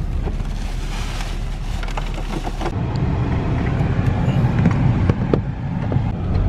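Steady low rumble of a moving vehicle, its engine and road noise heard from inside. A little under three seconds in, the high hiss drops away and the low rumble grows slightly.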